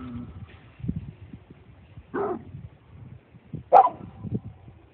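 Dog giving two short, sharp barks about a second and a half apart.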